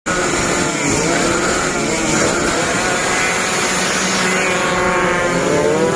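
Drag-racing motorcycle engines revving hard, several at once, their pitches climbing and dropping over one another.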